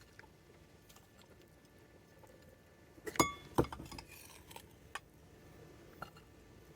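Glassware clinking: one sharp clink about three seconds in that rings briefly, a duller knock just after, then a few light clicks.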